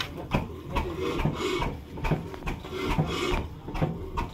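Old stationary engine with a large flywheel being hand-cranked: a rhythmic rasping chuff about two to three times a second as the crank and flywheel turn over.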